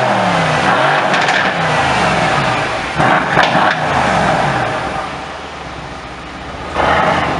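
Mercedes-AMG C63 S estate's twin-turbo V8 revved hard while standing, the pitch climbing and falling with each rev through its exhaust. There are sharp quick blips about three seconds in, then the revs settle down toward idle, and one more short loud blip comes near the end. The sound echoes in an underground car park.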